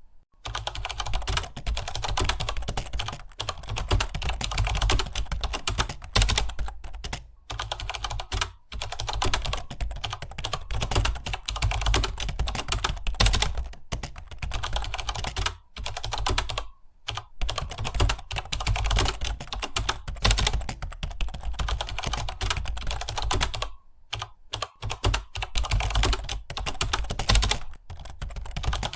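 Fast, continuous typing on a computer keyboard: a rapid stream of key clicks with a few brief pauses, the longest about a second long near the end.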